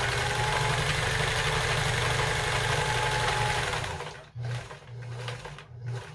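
Kenmore 158.14000 sewing machine running at speed, stitching through fabric on its multi-stitch stretch zigzag. About four seconds in it stops, then runs in three short spurts.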